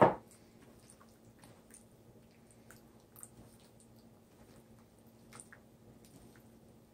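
Faint wet squishing and small clicks of a bare hand mixing raw eggs into shredded corned beef and cabbage, with a short loud thump right at the start.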